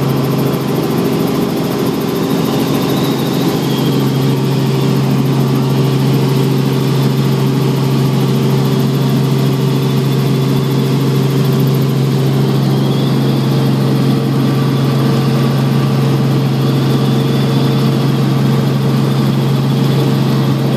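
Helicopter engine and rotors heard from inside the cabin in flight: a loud, steady drone with a strong constant low hum.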